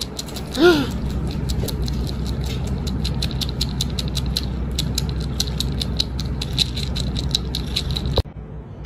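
A cat gives one short meow, then its teeth click rapidly and irregularly as it chews on a small plastic ring. The clicking stops suddenly near the end.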